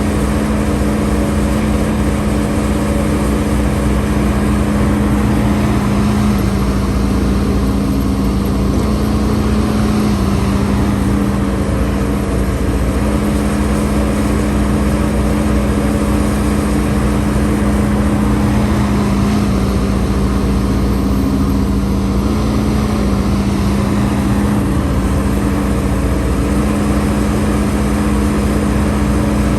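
Diesel engine of a HIDROMEK HMK230LC excavator running steadily at working speed, its pitch dipping and recovering slightly every few seconds as the machine works.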